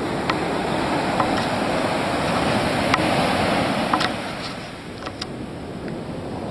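Surf breaking and washing up a sandy beach, a rushing noise that swells and then dies back about four seconds in. A few sharp clicks sound through it.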